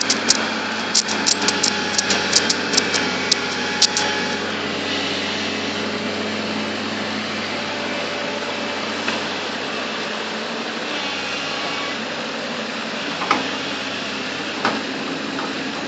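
Bulldozer's diesel engine running steadily. A quick run of sharp metallic clicks and knocks sounds over it in the first few seconds, and one or two single knocks come near the end.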